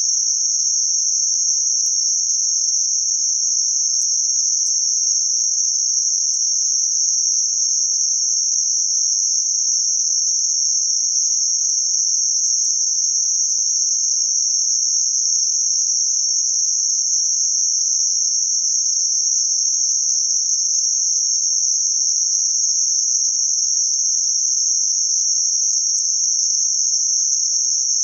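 Synthetic band-limited white noise centred around 6051 Hz: a steady, high-pitched hiss at an even level, with no change throughout.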